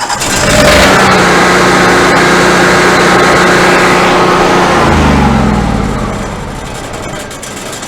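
Generator engine coming up to speed and running steadily, then slowing and winding down about five seconds in as it shuts off.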